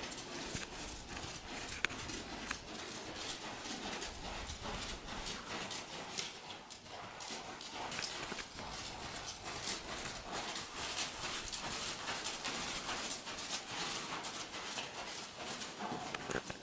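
A horse's hooves striking soft sand arena footing in a steady run of hoofbeats as it moves around under a rider.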